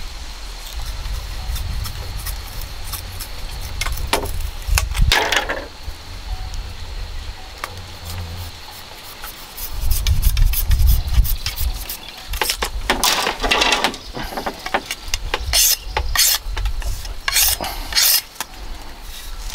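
Knife blade scraping thin bamboo strips as they are drawn along its edge to shave them for weaving. A few scraping strokes come, one longer stroke past the middle, then several short quick ones near the end, over a low rumble that is loudest about halfway through.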